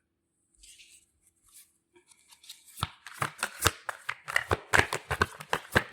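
Tarot cards being shuffled by hand: a fast, irregular run of short snapping clicks that starts about three seconds in, after a near-silent pause.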